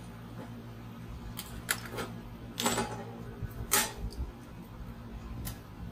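Hex key working the screws on a resin printer's metal case: a few sharp metallic clicks and scrapes, the loudest around the middle, over a steady low hum.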